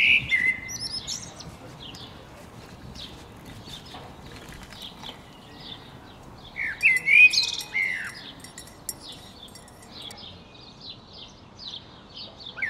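Birds chirping and calling: many short chirps throughout, with a burst of louder calls about halfway through, over a faint steady background hiss.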